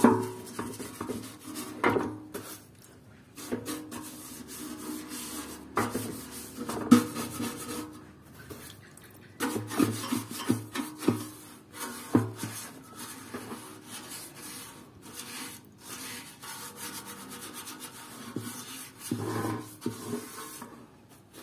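Paintbrush scrubbed back and forth over a metal motorcycle fuel tank coated in paint remover, rubbing off the softened paint in irregular bursts of strokes.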